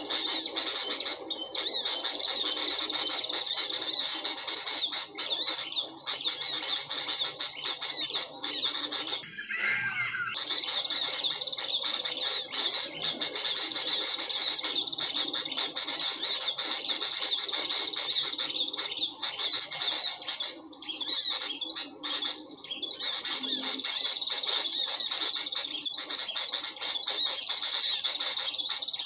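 Small birds chirping densely and continuously, a high twittering chorus that breaks off for about a second roughly nine seconds in, then resumes.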